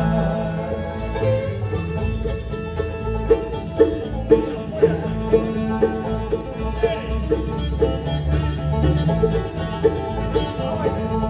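Live bluegrass band playing an instrumental break with no singing: banjo, mandolin, acoustic guitar and upright bass, with rapid picked notes over a steady walking bass.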